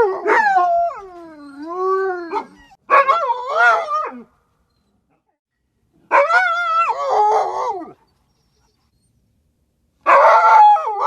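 A dog howling in drawn-out calls whose pitch bends down and up, four in all, separated by short silent pauses.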